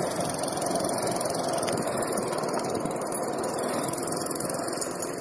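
Skateboard wheels rolling steadily over concrete, a continuous even rumble.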